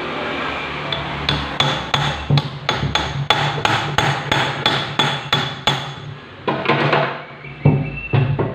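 Hammer striking metal in a fast, even series of ringing blows, about three a second, then a few slower knocks near the end, over a steady low hum.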